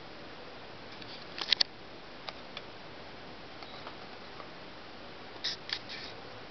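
Steady hiss with a few light, sharp clicks: three close together about one and a half seconds in, two single ones soon after, and a short cluster near the end.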